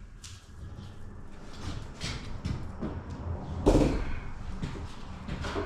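A sheet of plasterboard being handled and moved: scrapes and light knocks, with one heavier thud a little past the middle as the board is set down.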